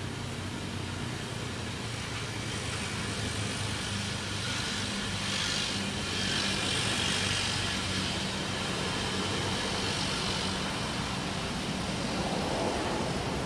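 Road traffic: a steady low engine hum, with the noise of a passing motor vehicle swelling through the middle and fading again.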